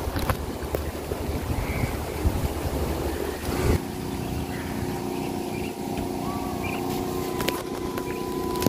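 Wind buffeting the microphone, then, after a cut about four seconds in, the steady drone of a motorboat engine running.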